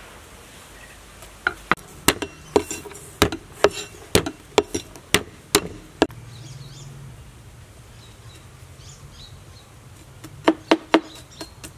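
Cleaver chopping on a wooden cutting board: about a dozen sharp knocks at roughly two a second, a pause of several seconds, then quicker strokes starting again near the end.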